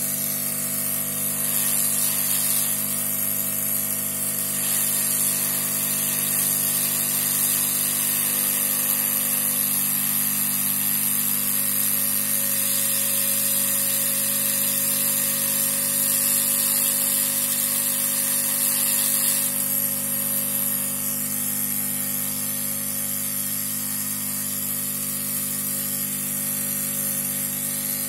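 Hot air rework station blowing steadily: a constant hiss of air over a low fan hum.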